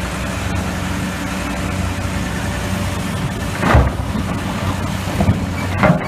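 Diesel engines of a Hitachi EX-1200 hydraulic excavator and an articulated dump truck running steadily under load. Twice, about four seconds in and again near the end, there is a loud crash of limestone rock, as rock from the excavator bucket lands in the dump truck's bed.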